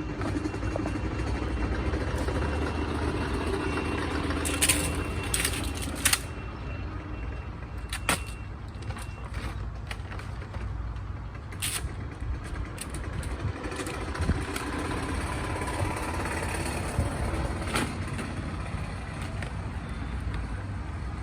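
Plastic RV sewer hose and fittings being handled and stowed: sharp knocks and clicks, several in a cluster a few seconds in and a few more later, over a steady low outdoor rumble.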